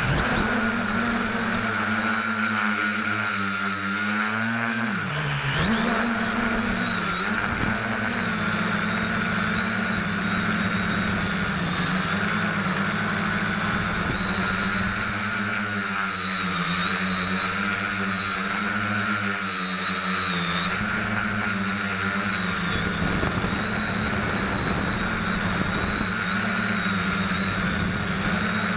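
SK450KK2 quadcopter's four brushless motors and propellers whirring in flight, heard close from a camera stuck under the frame. The pitch wavers up and down with throttle and drops sharply then comes back about five seconds in.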